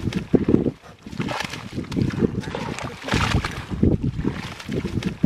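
A fish thrashing and splashing in shallow mud and water as it is grabbed by hand: irregular wet slaps and squelches, roughly one a second.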